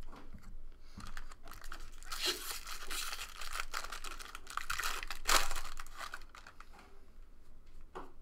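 Foil wrapper of a 2013 Bowman Jumbo baseball card pack being torn open by hand, crinkling and crackling. The tearing is densest over a few seconds in the middle, followed by fainter rustling as the cards come out.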